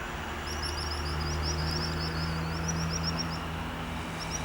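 Steady low engine hum, with a small bird's rapid high-pitched twittering over it for the first few seconds and briefly again near the end.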